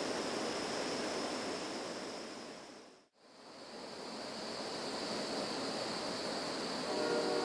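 Steady rushing, hissing background noise that fades out to a moment of silence about three seconds in, then fades back in. Near the end a locomotive air horn starts sounding a chord.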